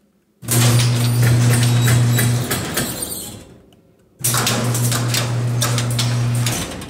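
Electric garage door opener motor running with a steady hum and the rattle of the overhead door moving on its tracks as it opens. The sound comes twice, each time starting abruptly and running about two seconds.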